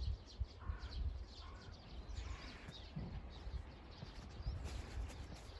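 Small birds chirping repeatedly, with a few lower, curving calls in the first half, over an uneven low rumble.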